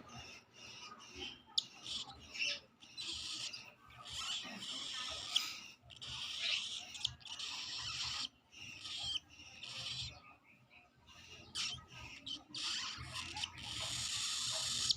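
Baby cockatiel giving its food-begging calls while being hand-fed: raspy, hissing calls in irregular bursts broken by short clicks, the sound of a chick asking for and taking food.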